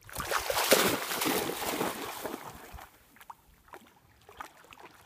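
Lake water splashing loudly for about three seconds as a dog wades through it, then dying down to a few small splashes and drips.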